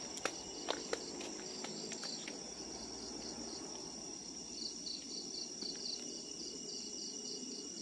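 Night chorus of crickets: a steady, high-pitched trill, with another insect chirping in quick even pulses around the middle. A few faint footsteps on stone steps in the first couple of seconds.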